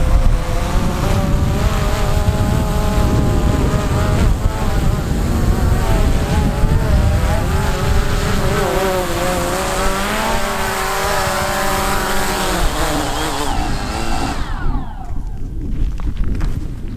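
Quadcopter drone's propellers buzzing with a wavering whine as it flies and comes in to land, then spinning down with a falling pitch about fourteen seconds in. Wind rumbles on the microphone underneath.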